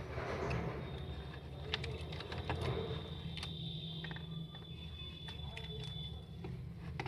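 Scattered light clicks and taps as the gold-coloured parts of an electric Kalash puja lamp are handled and fitted together, over a steady low hum. A thin, steady high tone sounds from about a second in until near the end.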